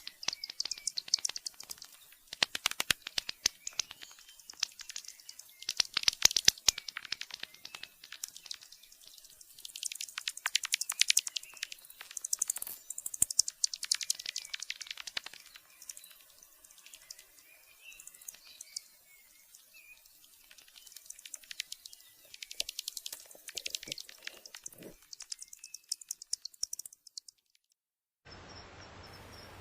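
Bats squeaking and chittering in bursts of rapid, high-pitched clicking chirps. Near the end the calls stop and a steady background hiss begins.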